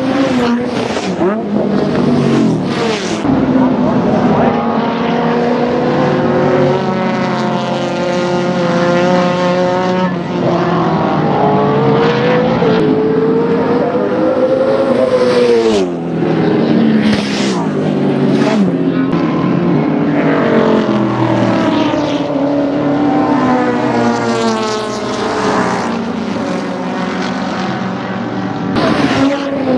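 Race car engines being driven hard through a corner one after another, rising in pitch under acceleration and dropping sharply on lifts and downshifts, several times over.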